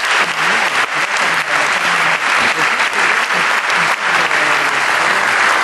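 Audience applauding: dense, steady clapping, with faint voices underneath.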